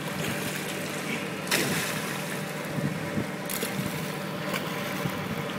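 Prawn trawler's engine running with a steady low drone under wind and sea noise, broken by two short sharp sounds about two seconds apart.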